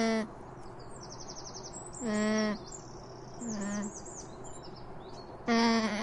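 Four short, even-pitched bleats, the third one fainter, with birds chirping and trilling in the background.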